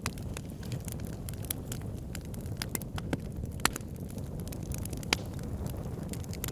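Wood fire in a fireplace crackling, with irregular sharp pops over a steady low rumble of the flames; two pops stand out, about three and a half and five seconds in.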